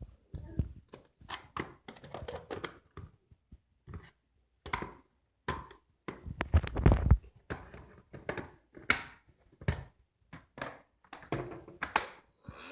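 Handling noise from cordless stick vacuum cleaners: irregular plastic clicks, taps and knocks, with a heavier thud about seven seconds in.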